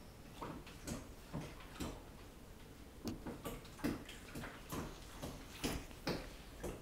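A kitten licking and grooming itself close to the microphone: soft, wet tongue strokes at about two a second, uneven in strength.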